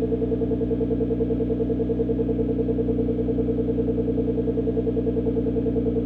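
Tuned 1000 hp Nissan GT-R R35's twin-turbo V6 idling through its exhaust after a cold start, a steady, even pulsing of about eight beats a second that holds unchanged.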